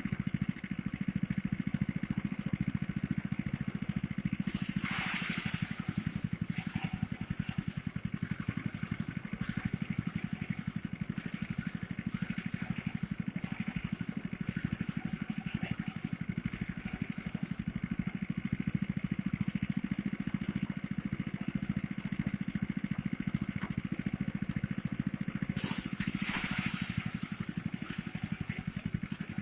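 Small engine of a motorised rice thresher running steadily. Two short bursts of hiss cut in over it, about five seconds in and again near the end.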